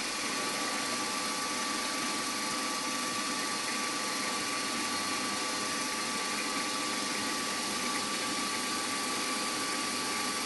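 Bench milling machine's spindle running steadily with a 2.2 mm drill, drilling a small hole through a brass carburettor body: an even motor hiss with a steady whine that comes in right at the start.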